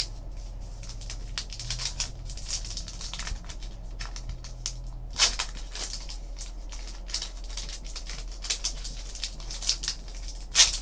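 Trading card pack wrapper being torn open and handled, crinkling, with cards rubbing against each other: a steady run of short rustles and clicks.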